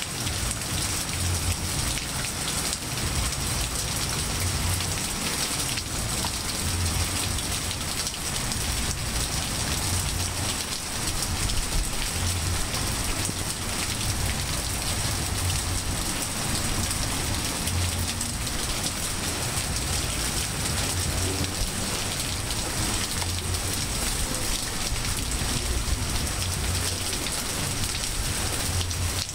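Steady rain falling on trees, grass and pavement, an even hiss throughout, with a low rumble coming and going underneath.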